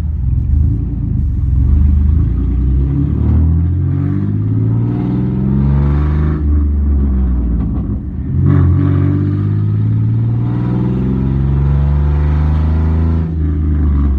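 Chevy pickup's engine heard from inside the cab, revving up under acceleration: its pitch climbs steadily for several seconds, drops about six seconds in as the transmission shifts, then climbs again and drops near the end.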